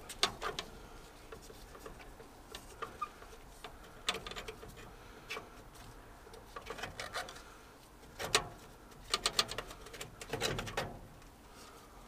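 Irregular clicks, small knocks and rattles of components inside an old combi boiler being pulled and worked loose by hand. They come in short clusters, busier in the last few seconds.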